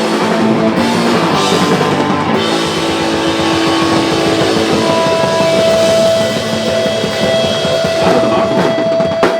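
Live rock band playing loud, with drum kit and electric guitar. From about halfway, a single high note is held steadily over the music.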